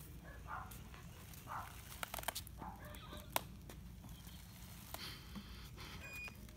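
A few sharp knocks and clicks as a hoverboard is handled and set down on asphalt, over a faint steady low hum.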